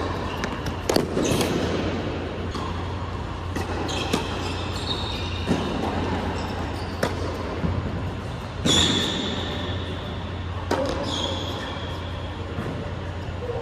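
Tennis ball struck by racquets and bouncing on an indoor hard court during a rally, a sharp knock every second or two, with sneakers squeaking on the court surface several times. The hits echo in a large hall over a steady low hum.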